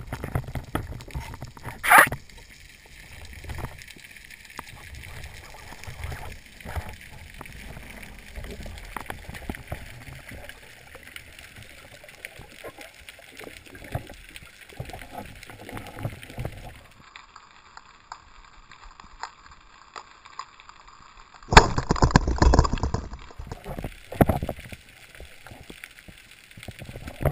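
Underwater sound through a camera housing: low gurgling and scattered clicks of water, with a single sharp crack about two seconds in, the speargun firing. Near the end comes a loud spell of sloshing and gurgling lasting about a second and a half.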